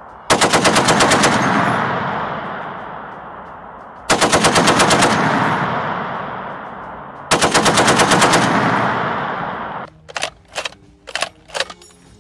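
Belt-fed machine gun firing three bursts of about a second each, roughly ten rounds a second, each burst followed by a long rolling echo that dies away. A few shorter, quieter sharp sounds follow near the end.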